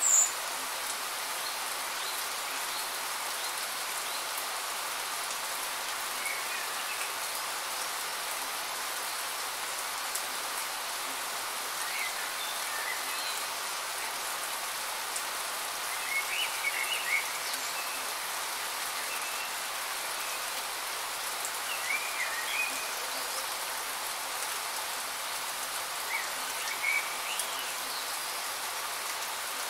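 Steady rain falling, an even hiss. Short bursts of high chirping come through it every few seconds, with a sharp bright chirp right at the start.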